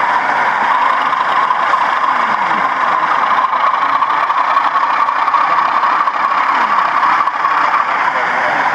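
Sound-fitted 00 gauge DCC model diesel locomotive playing its recorded diesel engine sound through its small onboard speaker as it runs along the layout, the engine note creeping slightly higher. Faint voices of people chatting sit underneath.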